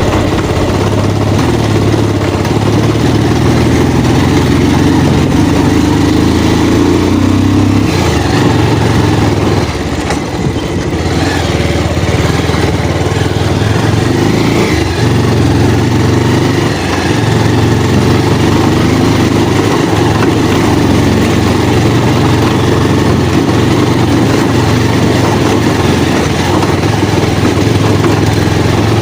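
Motorcycle engine running steadily at low revs, easing off briefly about ten seconds in.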